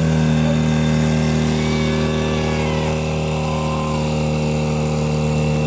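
Portable fire pump's engine running steadily at high revs under load, pushing water into the hose lines.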